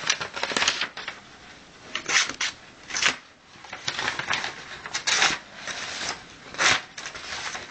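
The small secondary blade of a Victorinox Spartan Swiss Army knife cutting through material in several short rasping strokes with pauses between them. This blade is the sharper, less-used one and goes through easily.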